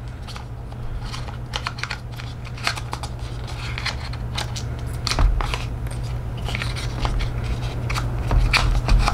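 Paperboard tray and accessories of an iPhone X box being handled: a run of irregular taps, clicks and scrapes as the charging cable and adapter are pushed back into the compartments, over a steady low hum.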